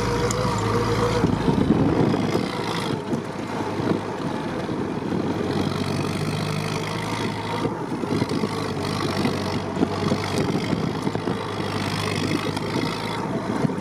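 Willys Jeep driving along a snowy forest track, its engine running steadily under load, heard from inside the cab with frequent rattles and knocks as it bumps along.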